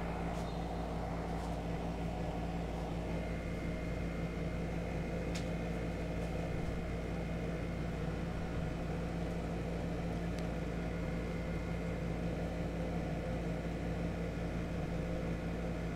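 A steady mechanical hum, with a few faint clicks spread through it.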